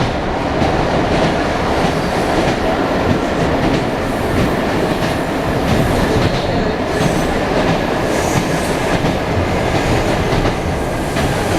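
Wheels of an ED9M electric suburban train clacking over the rail joints, heard from inside the carriage over the steady running noise of the moving train.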